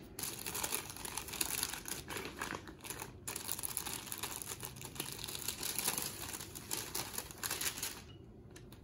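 The paper inner wrapper of a pair of sterile surgical gloves being unfolded and pressed flat: stiff paper rustling with many small crackles, stopping about eight seconds in.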